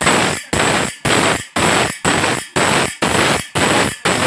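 Grinding wheel grinding the teeth of a long steel saw blade: a harsh grinding noise in even strokes about twice a second, each starting sharply and fading before the next.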